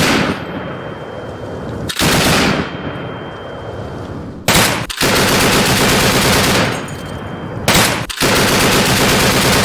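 DShK 12.7×108 mm heavy machine gun firing in bursts: a short burst about two seconds in, then longer bursts of one to two seconds with brief pauses between them. Each burst is followed by a trailing echo.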